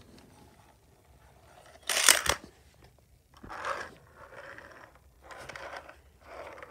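Hand rummaging through a plastic bin of diecast toy cars: rattling and clacking, loudest in one sharp clatter about two seconds in. This is followed by several shorter bursts of scraping and rustling as a car is handled on the plastic playset.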